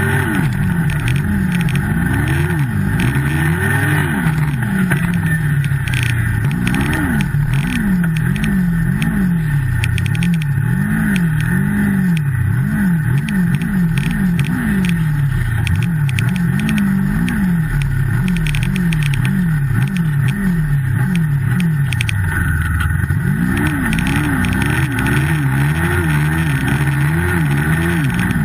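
Turbocharged Yamaha snowmobile engine under load in deep snow, its pitch rising and falling about once a second as the throttle is worked on and off.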